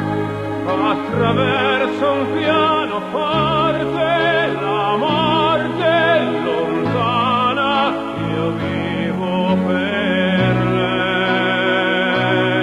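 Recorded pop-operatic ballad music: a wavering melody with strong vibrato over sustained chords.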